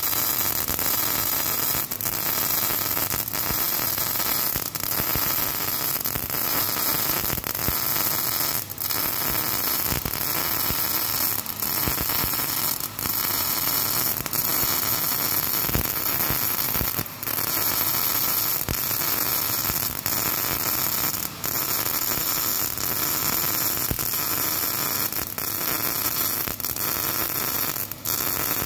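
MIG welding arc with solid wire on steel, running continuously with a steady crackling hiss and a few brief dips in level where the arc momentarily eases.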